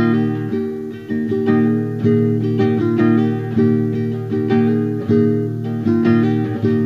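Solo acoustic guitar playing an instrumental introduction, chords struck about twice a second, each ringing and fading into the next.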